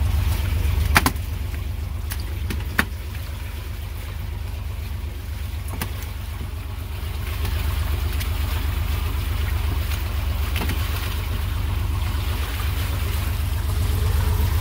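Fishing boat's engine running steadily with a low, evenly pulsing hum, with a few sharp knocks in the first three seconds, the loudest about a second in.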